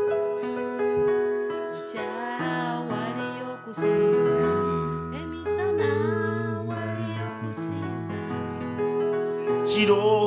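Electric keyboard holding sustained chords, with a voice singing over it from about two seconds in.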